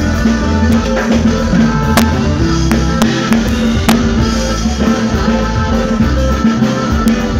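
Live conjunto band playing an instrumental passage with no singing: acoustic guitar strumming over bass and a drum kit keeping a steady beat.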